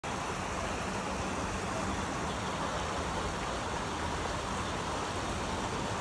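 Water spilling over a low concrete step weir into a shallow pond: a steady rushing gurgle, with a faint low hum underneath.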